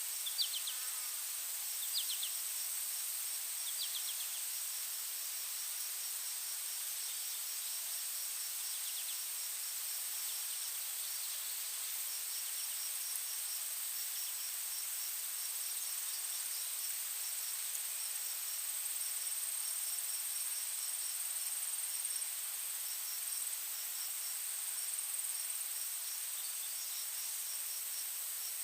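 Outdoor insect chorus: a steady, high-pitched trill runs throughout, with a faster pulsing chirp over it. In the first few seconds, a short sharp chirp comes about every two seconds.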